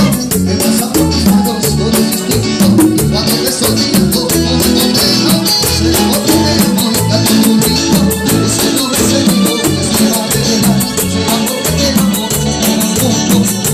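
Latin dance music with a steady beat: shaker percussion ticking evenly over a pulsing bass line, in an instrumental passage without singing.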